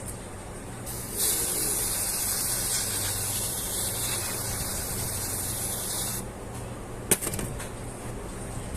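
WD-40 aerosol can spraying in one continuous hiss of about five seconds, penetrating oil sprayed onto a gear stuck on its shaft to loosen it. A single sharp click follows about seven seconds in.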